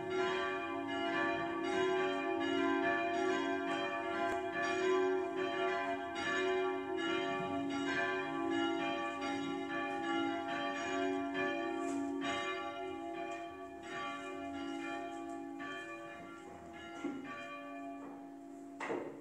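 Church bells ringing, several bells struck over and over, about two strikes a second, their long hum overlapping; the ringing slowly fades toward the end, and a short sharp knock comes just before it stops.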